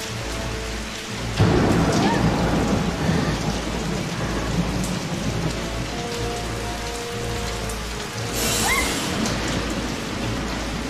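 Steady rain with a sudden loud thunderclap about a second and a half in that rumbles on, and a second, sharper crack of thunder about eight seconds in.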